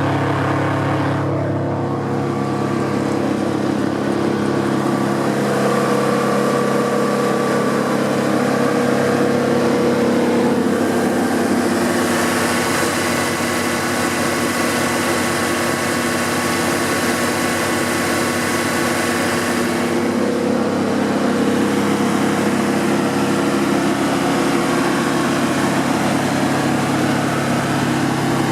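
Cummins 3.3-litre diesel engine of a Vermeer BC1000XL wood chipper running steadily, its note brightening with more hiss for several seconds in the middle before settling back.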